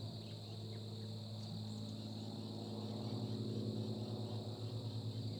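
Evening insect chorus: crickets trilling in a steady high drone, over a steady low hum, with a few faint short high chirps.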